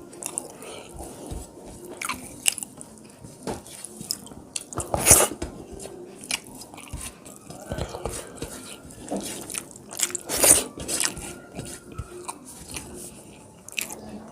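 Close-miked chewing and biting of a meal of rice and fish curry, with frequent wet mouth clicks and smacks. Two louder, longer bites come about five and ten seconds in.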